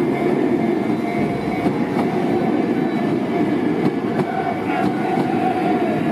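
Train passing close by at a railway level crossing: a steady, loud rumble with scattered sharp wheel clacks, and a held ringing tone over it.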